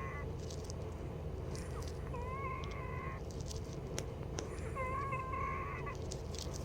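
Wheezing in a person's breathing: a whistling, musical tone about a second long that comes with each breath, about every two and a half to three seconds, heard twice in full after the tail of one at the start. The wheeze is the sign of narrowed airways in the lungs, which the caregiver is watching until the next bronchodilator treatment.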